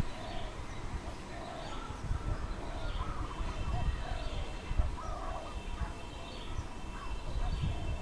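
Dove cooing: short low coos repeated about once a second. A few rising calls from another bird and low, gusty wind rumble sit alongside.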